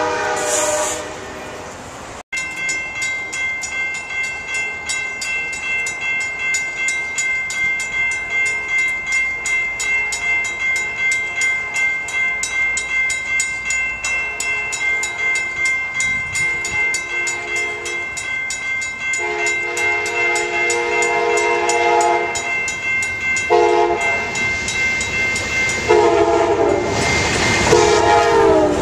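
Grade crossing bell ringing steadily, about two strokes a second. An Amtrak P42DC locomotive's K5LA air horn then sounds the crossing signal, long, long, short, long, getting louder as the train nears. The rumble of the train reaching the crossing joins in at the end.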